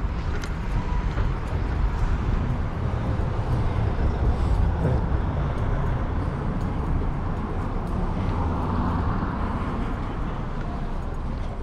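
Road traffic: a motor vehicle going by close to the microphone, over a steady low rumble.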